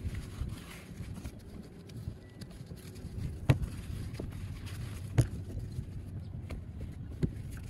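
Handling noise of a fabric cover being pulled over a sailboat's deck hatch and the hatch lid being worked: light rustling with three sharp knocks, over a steady low rumble.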